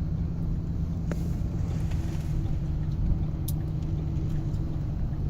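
Car interior while driving: a steady engine hum with road noise, and a couple of faint clicks.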